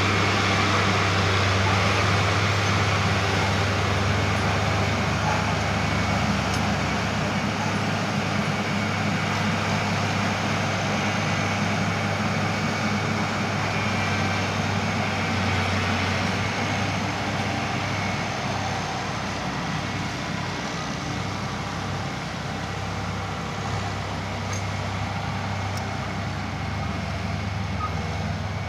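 A John Deere tractor pulling a Dewulf 3000 potato harvester at work: a steady diesel drone with the harvester's machinery rattling over it. It grows a little quieter through the second half.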